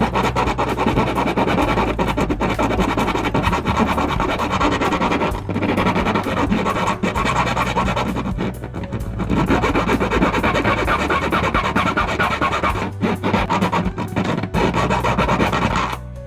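Power drill boring a hole through sheet-metal roof panel, a harsh grinding rasp that stops briefly several times, over background music.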